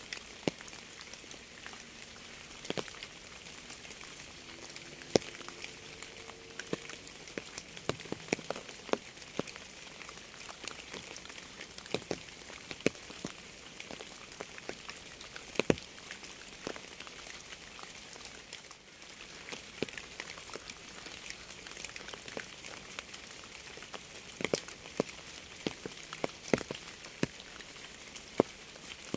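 Steady rain, with single drops striking a hard surface in sharp, irregular ticks over a constant hiss.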